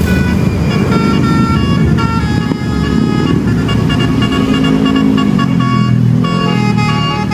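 Bus 'telolet basuri' multi-note air horn playing a quick melody of short stepped notes, over the low running of the bus's engine.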